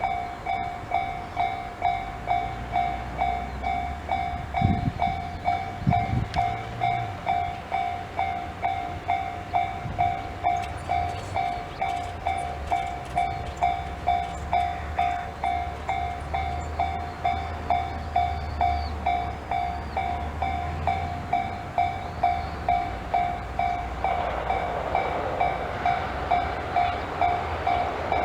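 Japanese level-crossing warning alarm of the Tobu Tojo Line's own electronic type, ringing a single repeated tone about twice a second. Under it a train rumbles past, and louder rail noise comes in near the end.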